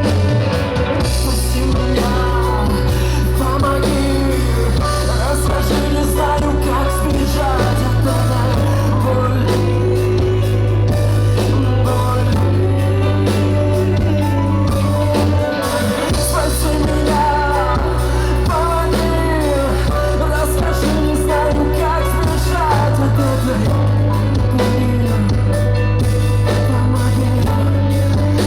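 Live rock band playing with a singer's vocal over heavy bass, in a club.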